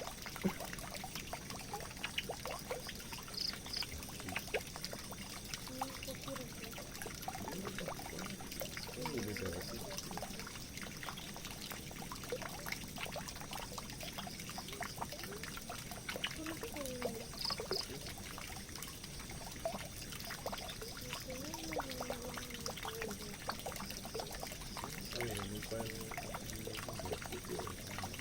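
Water pouring and trickling steadily down a drain, with small splashes and gurgles throughout.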